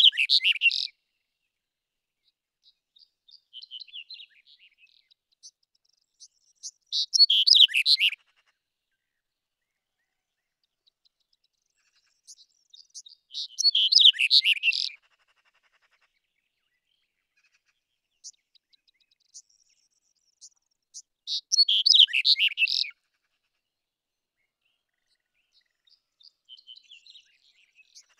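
Black-headed bunting singing: a short song of rapid high notes, about a second and a half long, repeated roughly every seven seconds, some phrases opening with a few faint notes.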